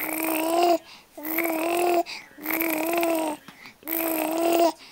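Four-month-old baby cooing: four drawn-out vowel sounds of just under a second each, held at a fairly steady pitch, with short pauses between them.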